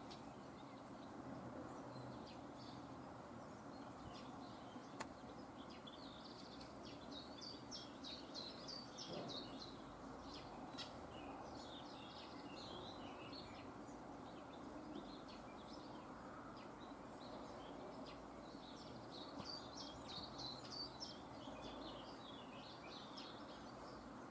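Small birds chirping: many short, high chirps in clusters over a steady faint background noise, busiest in the middle and again near the end.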